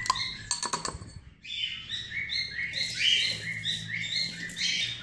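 A metal spoon clinks against a plastic cup as thick hand-feeding formula is stirred, for about the first second. Then small birds chirp in a rapid run of short, high repeated notes.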